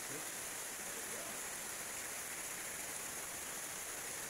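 Steady even hiss with no distinct events.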